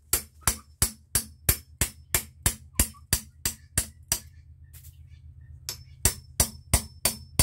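Hammer striking a chisel cut into a cherry plum branch, quick even blows about three a second. The blows stop about four seconds in and start again about a second and a half later.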